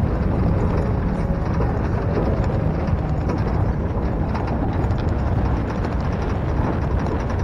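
Steady rush of wind and road and engine noise from a small pickup truck at road speed, heard from its open cargo bed.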